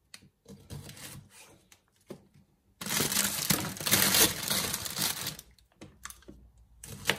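A knife trimming Brussels sprouts on a plastic chopping board: light scattered taps and clicks. About three seconds in, the plastic bag of sprouts crinkles and rustles for nearly three seconds, the loudest part. Then a few more knife taps follow.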